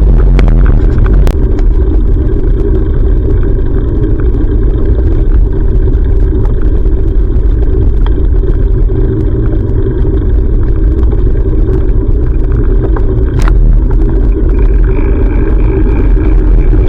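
Loud, steady low rumble of wind buffeting and road noise on a bicycle-mounted action camera, with scattered sharp clicks and rattles.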